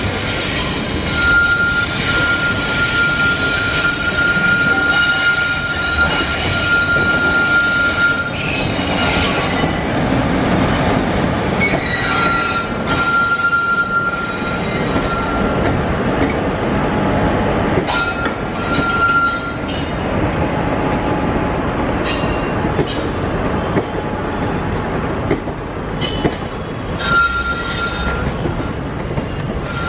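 Indian Railways express passenger coaches rolling slowly past as the train departs, their wheels squealing in a high steady tone that comes and goes in long stretches. Sharp knocks sound now and then as wheels cross the rail joints and points.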